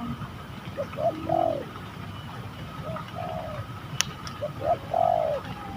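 Spotted doves cooing: three rounded coo phrases spaced about two seconds apart, with a single sharp click about four seconds in.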